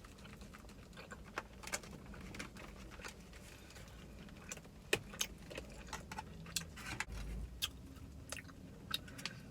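Close-miked chewing and lip smacking on BBQ-sauced rib bites: a stream of irregular sharp smacks and clicks.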